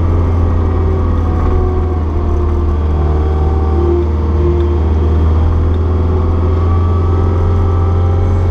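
Caterpillar 236B skid steer's diesel engine running steadily under work, a loud constant low drone.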